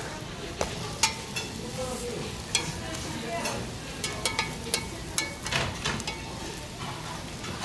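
Pancakes frying in oil on a hot griddle, with irregular sharp clicks and scrapes of a cooking utensil against the pan.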